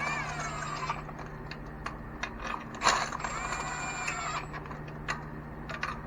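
Socket ratchet clicking in irregular short runs while spark plugs are run down into the engine, with scattered light metallic ticks of tools.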